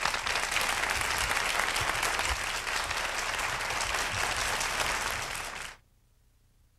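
Audience applauding steadily, then fading out to near silence near the end.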